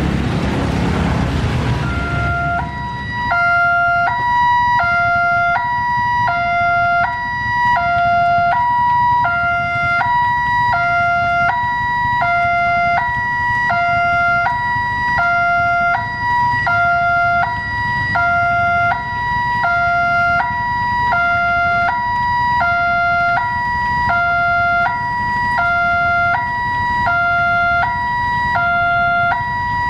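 Rain hissing for the first two seconds, then an electronic two-tone railway level-crossing alarm alternating a low and a higher tone, about one pair every second and a bit, steady and unchanging in pitch: the warning that a train is approaching.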